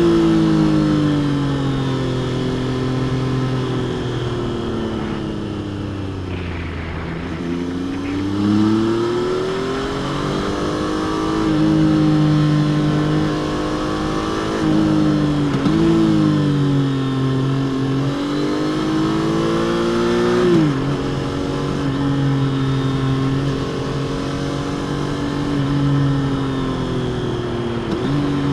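Triumph Trident 660's stock inline three-cylinder engine under way. The pitch rises and falls with the throttle, easing down slowly in the first few seconds, then climbing again and dropping sharply a few times, around halfway through and about three-quarters of the way in.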